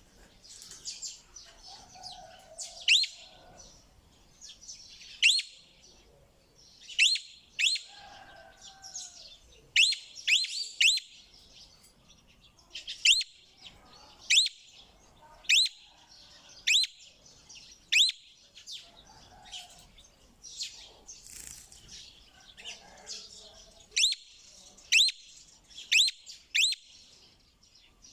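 A parrot calling over and over: short, sharp, high calls, each a quick sweep in pitch, coming roughly once a second in runs, with softer chattering between them.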